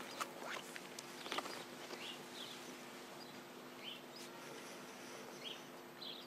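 Quiet outdoor pause with a few short, high bird chirps spread through it, some brief clicks and a faint steady hum underneath.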